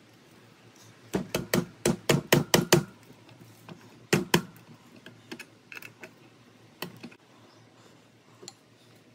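Rapid sharp knocks, about eight in under two seconds, then two more a second later, followed by a few lighter clicks.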